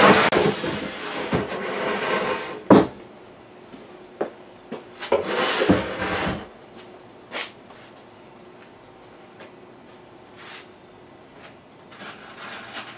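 Plywood cabinet box being slid and turned on a wooden bench: two stretches of scraping, a sharp knock about three seconds in, and a few lighter knocks and clatters as it is handled.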